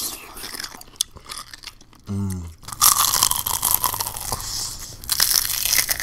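Close-miked biting and crunching, ASMR-style: teeth going into pickles and then crisp fried chicken, with a short hum of a voice about two seconds in and dense crackly crunching after it.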